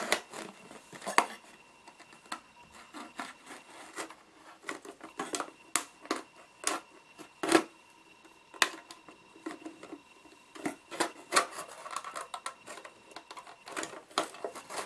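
Thin plastic water bottle crackling and crinkling in irregular sharp clicks as a blade cuts around it and hands turn and squeeze it.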